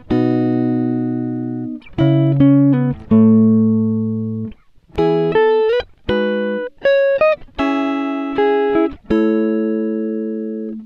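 Background music of plucked guitar: chords that ring out and fade, with quicker runs of single notes in between.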